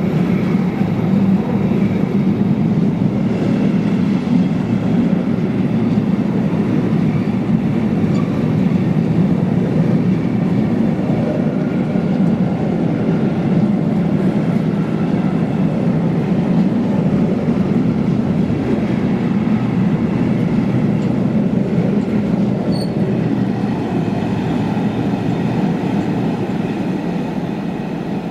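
A long freight train of covered bogie wagons running past at speed: a steady rolling rumble of wheels on rail that eases off near the end as the last wagon pulls away.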